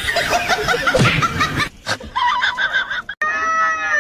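A person laughing in quick, short bursts. About three seconds in the sound cuts off abruptly and a long, held, high-pitched call begins.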